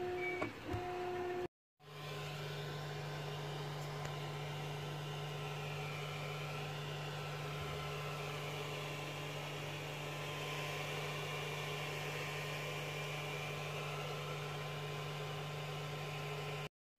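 Creality CR-10S 3D printer running: a steady hum with faint stepper-motor whines slowly rising and falling in pitch. Two brief cuts to silence break it, one about a second and a half in and one near the end.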